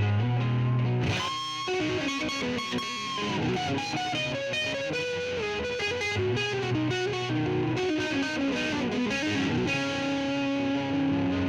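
Electric guitar jamming over a looped riff played back by a Donner looper pedal. A low riff repeats about every six seconds, with a lead line over it that steps downward and settles on a held note near the end.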